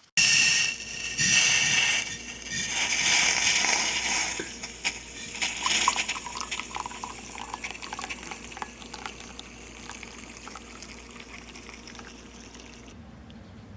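Water running or pouring in a strong stream for the first few seconds, then easing to a trickle with scattered drips, and cutting off near the end.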